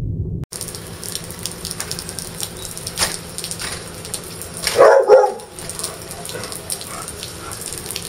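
A dog gives a short, loud double bark about five seconds in, over steady rain and wind noise with scattered drips. A brief car-cabin rumble cuts off half a second in.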